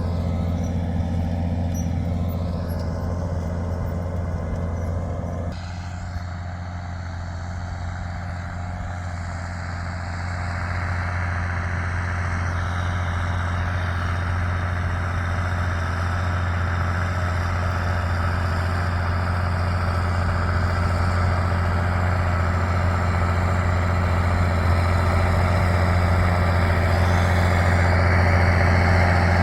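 Claas Axion 820 tractor's six-cylinder diesel running through a straight pipe with a steady low drone. It drops a little quieter about five seconds in, then grows gradually louder from about ten seconds on.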